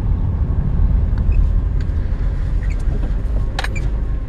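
The 1987 Acura Legend's 2.5-litre V6 running at low revs, heard from inside the cabin as a steady low rumble, with a few light clicks, the sharpest about three and a half seconds in. Its idle has been dropping since a coolant flush, which the owner puts down to water getting into the distributor cap.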